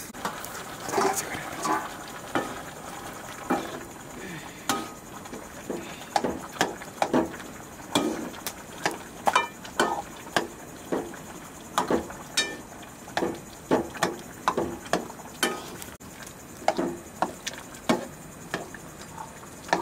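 A metal ladle stirring a wok of vegetable stew, with irregular sharp knocks and scrapes of metal on the steel pan, several a second.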